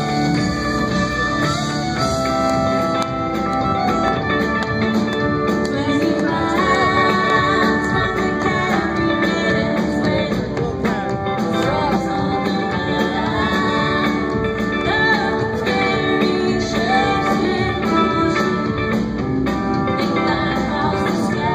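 Live country-rock band playing: a woman singing lead over electric guitars, upright bass and drums, with a fiddle at the start.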